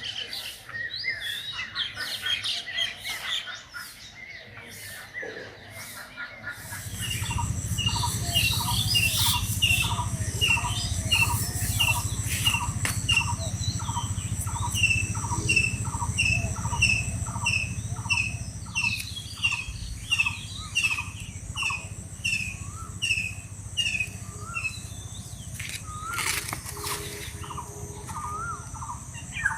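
Birds calling: scattered chirps at first, then from about seven seconds in a bird repeats a short, falling call about twice a second. Under the calls runs a low, steady rumble.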